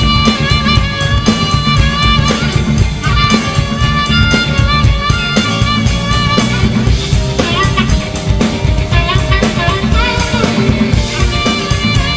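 Rock band playing with a harmonica solo carrying the lead over rhythm guitar, bass and a steady drum beat; the harmonica notes bend in pitch partway through.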